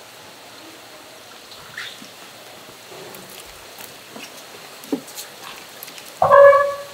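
Steady hiss of running water with a few light clicks. Near the end comes a short, loud pitched sound lasting about half a second.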